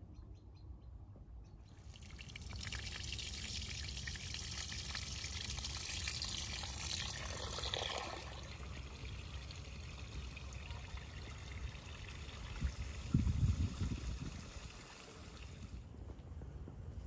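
Water from an outdoor tap running into a bowl of rice as a hand works the grains to wash them. The water starts about two seconds in and stops shortly before the end, with a brief low thump a little after the middle.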